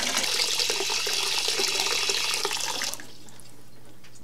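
Water from a water heater's drain valve pouring into a half-filled plastic bucket, a steady splashing rush. It stops sharply about three seconds in.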